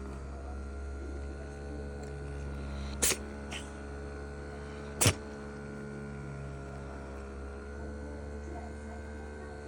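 A cat sneezing twice, two seconds apart: a sharp sneeze with a small second puff just after it, then a louder sneeze. A steady electrical hum runs underneath.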